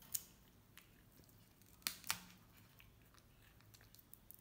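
Faint, sharp crunches of a baby monkey biting and chewing lotus seeds: one just after the start and a close pair about two seconds in.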